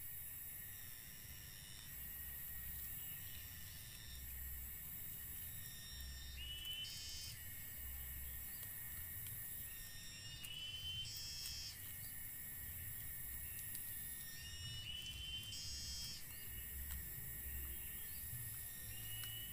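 Insects droning steadily in rural outdoor ambience, with an animal's short call, a rising note then a higher chirp, repeating about every four seconds.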